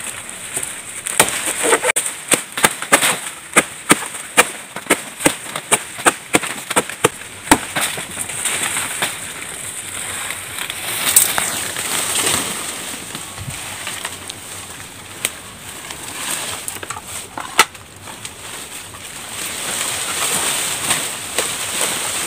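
A machete chopping into the soft trunk of a banana plant partway up, cutting it so the fruit-bearing top will fall. There is a quick run of sharp strokes about two a second for several seconds, then softer rustling with a few single strokes.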